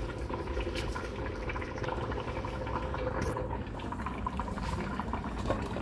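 Pot of molokhia (saluyot) stew with chicken simmering on a gas burner, a steady bubbling, with a few light clicks of metal against the pot.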